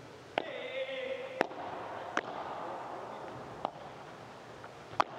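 Padel rally: sharp knocks of the ball off the rackets and court, about one a second, beginning with the serve, over crowd noise and a voice.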